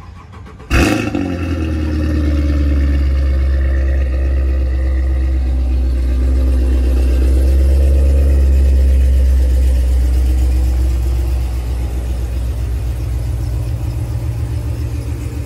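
2017 Cadillac CTS-V's supercharged 6.2-litre V8 starting up with a loud flare about a second in, then settling into a steady deep fast idle that eases down a little and turns more pulsing near the end.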